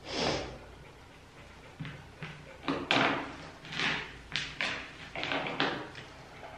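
Handling noises: irregular bumps and rustles, about ten in all, as a small dog shifts and is held and lifted on a rubber-matted grooming table.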